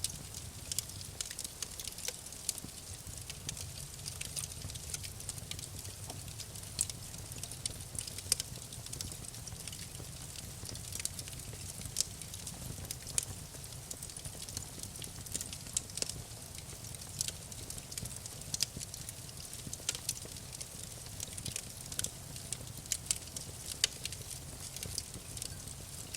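Wood campfire crackling, with frequent sharp irregular pops and snaps over a low steady rumble of the burning fire.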